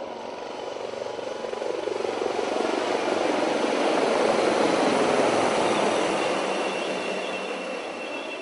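A formation of four HAL Dhruv helicopters passing low overhead: rotor chop and turbine noise swell to a peak about halfway through as they go over, then fade.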